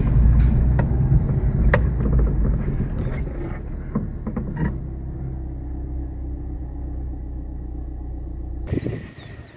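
Car engine running at low speed, heard from inside the cabin, with a few knocks from the suspension and body as the car rolls over a rough dirt track. The hum is louder in the first couple of seconds, then settles lower and steadier before cutting off near the end.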